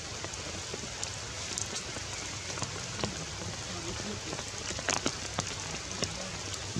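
Steady rain falling on forest leaves, with scattered heavier drops landing as sharp taps, several close together about five seconds in.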